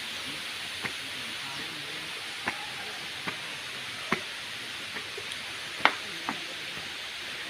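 Waterfall rushing steadily, with about eight short sharp clicks scattered over it, the loudest about six seconds in.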